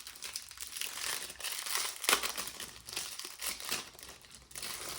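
Packaging crinkling and tearing as a photo frame is unwrapped by hand, an irregular run of crackles with a sharp, louder crackle about two seconds in.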